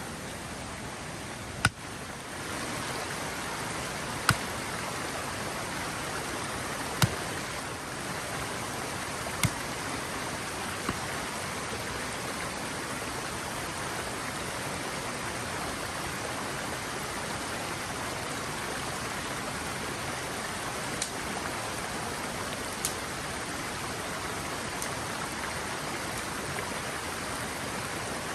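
Creek water running steadily, with a few sharp clicks scattered over it.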